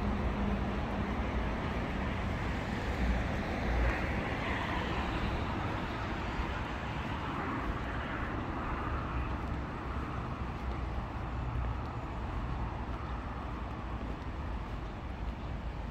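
Road traffic: a steady low rumble of vehicles, with one passing that swells about four seconds in and fades away over the next several seconds.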